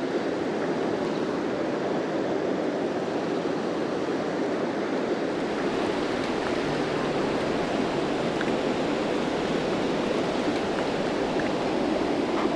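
River water rushing steadily over rocks, an even unbroken noise of flowing water.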